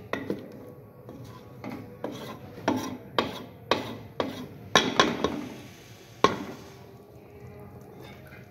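Wooden spoon stirring a thin curry in a metal pot, knocking against the pot's sides about twice a second. The knocks grow louder through the middle and stop with a last one about two-thirds of the way in, leaving quieter stirring.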